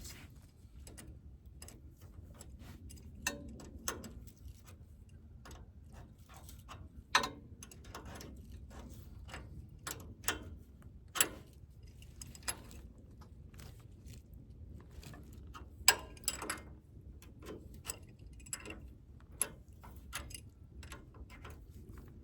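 Irregular small metal clicks and clinks of parts and tools being handled while the backhoe hardware is taken off the tractor, a few sharper knocks standing out among them.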